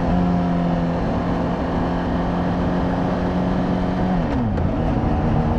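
Honda CBR600RR's inline-four engine, heard through its stock exhaust, running at steady revs under wind noise; about four seconds in, the revs dip and climb again.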